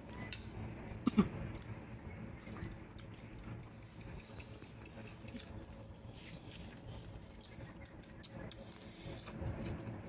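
Close-up eating noises: chewing with faint crunching, and a brief loud vocal sound about a second in.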